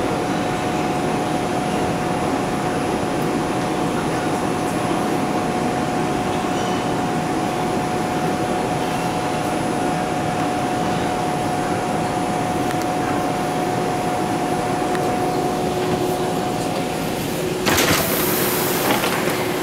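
Bombardier R142 subway car heard from inside as it brakes along a station platform: steady rumble and rail noise with a constant whine. Near the end, as the train comes to a stop, there is a short sharp hiss of air.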